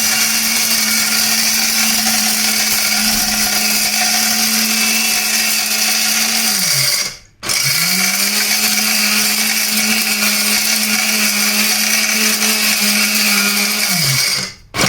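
Electric spice grinder's motor and stainless-steel blade running at high speed, grinding dry turmeric pieces. About seven seconds in it is switched off, winds down briefly and is started again at once; it stops and restarts the same way near the end.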